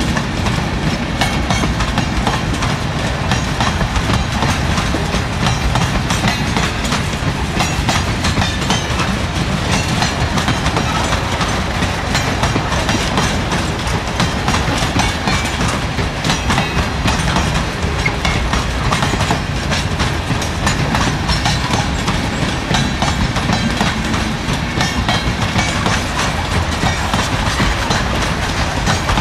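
Freight train of grain hopper cars and boxcars rolling past close by: a steady low rumble of steel wheels on the rails with a constant clatter of clicks and knocks, the clickety-clack of wagon wheels.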